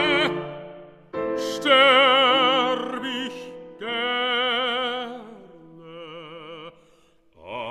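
Baritone voice singing a German art song (Lied) with piano accompaniment: long held notes with a wide, even vibrato in three phrases, the third softer and higher. A short pause near the end, then the singing resumes.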